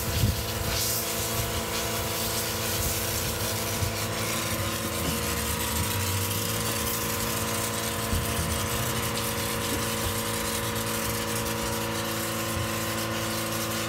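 Snow foam hissing steadily from a hose-fed foam lance as it is sprayed over a car's body, over the constant hum of the wash-bay pump machinery.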